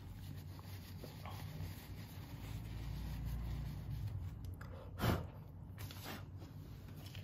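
A tissue rubbing and wiping over a smartwatch's tempered-glass face, soft and irregular, with a brief louder scrape about five seconds in, over a steady low hum.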